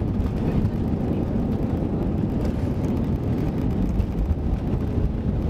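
Airbus A320 cabin noise during the landing rollout: a steady low rumble from the wheels on the runway and the engines, heard from inside the cabin over the wing.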